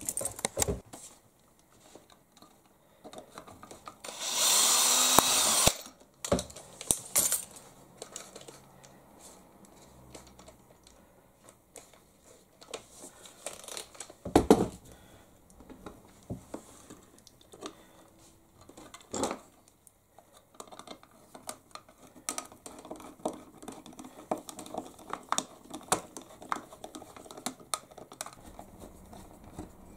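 A small power drill runs in one short burst about four seconds in, then sharp clicks and taps of small tools and screws being handled on a plastic servo mount.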